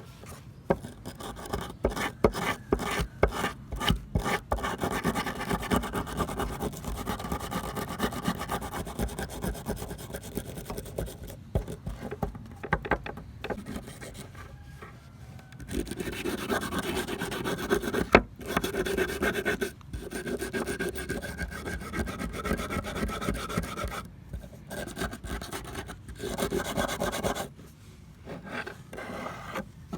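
Rapid, continuous rasping strokes of hand abrasion on the steel of old pliers during rust removal, with short breaks about halfway through and near the end.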